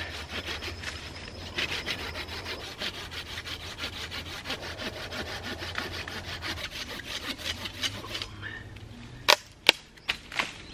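Folding hand saw cutting through a thick branch of dense Australian hardwood in quick, even back-and-forth strokes. The work is hard going. The sawing stops near the end, and four sharp knocks follow.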